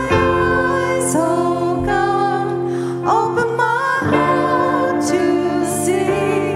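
A church worship band and singers performing a song, with sung melody over long held chords that change about four seconds in.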